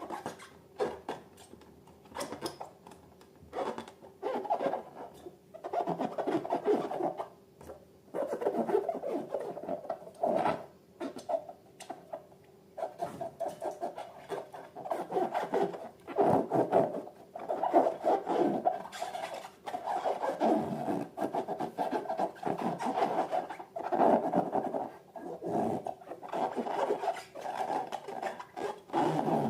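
Balloons and slime handled by hand, rubbing and squishing in irregular short bursts, with squeaky rubber notes.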